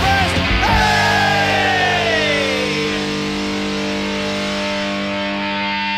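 Punk hard-rock band with distorted electric guitars: after the full band plays, about a second in, the band holds one ringing chord, with a note sliding down in pitch over the next two seconds, as at the close of a song.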